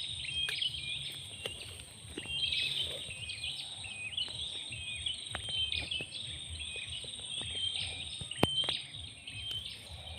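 A chorus of birds chirping rapidly and continuously, over a steady high-pitched insect whine and a low rumble. A single sharp click sounds about eight seconds in.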